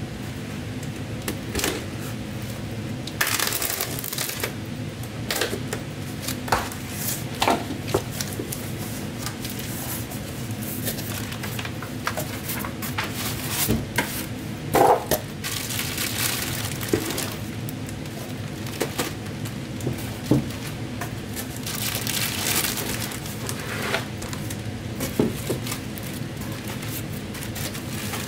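Cardboard box and packing material being opened and handled: irregular rustling, crinkling and tearing, with scattered knocks, over a steady low hum.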